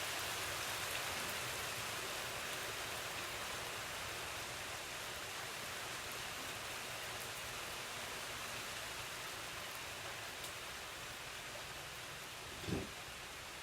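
Steady hiss that slowly fades, with a single short knock near the end.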